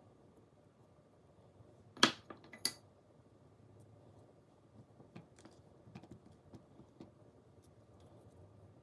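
Two sharp knocks about two seconds in, followed by a scatter of lighter clicks and taps, as of objects being handled and set down. A faint steady air-conditioner hum runs underneath.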